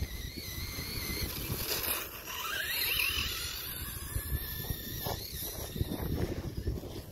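Radio-controlled paddle-tired sand buggy driving on grass some way off, its motor whining and wavering in pitch, with a rising whine as it speeds up about two and a half seconds in. Wind buffets the microphone.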